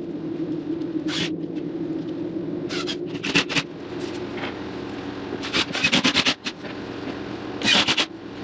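Groups of quick, short scraping strokes on drywall, three to six at a time, over a steady low machine hum.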